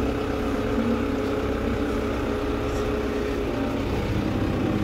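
New Holland tractor's diesel engine running steadily, heard from inside the cab as the tractor is driven. A faint higher whine over the hum fades out about three and a half seconds in.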